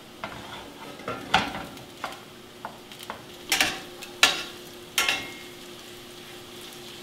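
Corn tortilla pieces sizzling in hot coconut oil in a frying pan while a utensil stirs them, knocking against the pan four or five times with a short metallic ring.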